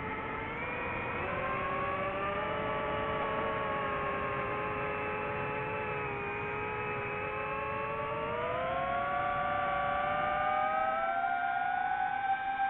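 DJI FPV drone's motors and propellers whining in flight, the pitch following the throttle: it dips right at the start, holds fairly steady, then rises about two-thirds of the way through and stays high.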